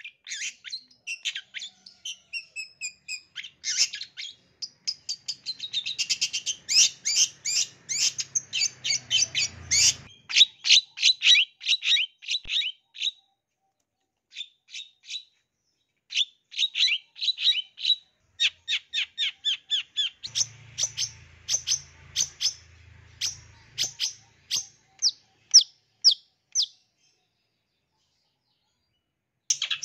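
Long-tailed shrike (cendet) singing a rapid string of sharp, high chirps and mimicked calls of other birds, in runs that break off for a few seconds in the middle and stop near the end.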